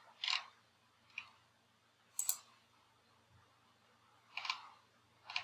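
About five separate computer mouse clicks, irregularly spaced, made while working in modelling software.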